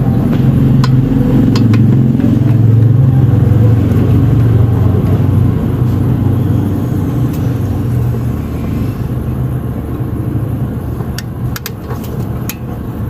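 A motor vehicle's engine running close by, a steady low rumble that eases off after about eight seconds, with a few sharp clicks.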